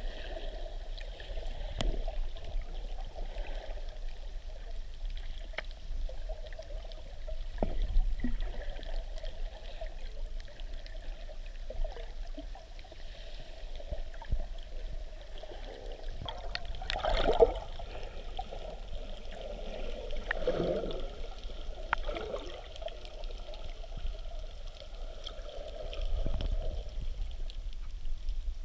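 Muffled water sloshing and gurgling around a camera held underwater while snorkelling, with scattered small clicks and a louder bubbly swirl a little past the middle.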